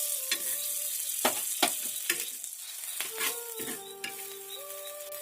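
Butter sizzling on a hot tawa as a bread sandwich fries, with a few sharp clicks of a utensil against the pan.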